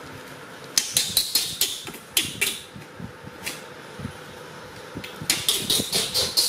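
Disposable diaper crinkling and rustling in quick, sharp crackles as it is handled and fastened on a baby monkey. The crackles come in two spells, from about a second in and again from about five seconds in, with a lone crackle between.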